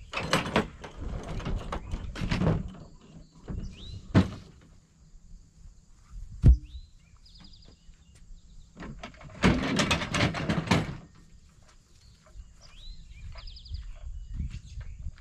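Tools and gear being handled in a utility vehicle's cargo bed: rummaging and knocking in two spells, with one sharp knock about halfway through.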